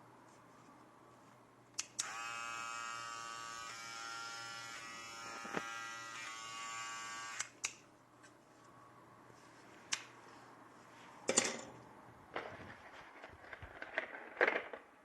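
HK-550 cordless T-blade hair trimmer clicked on, running with a steady buzz for about five seconds, then clicked off. Several handling clicks and knocks follow.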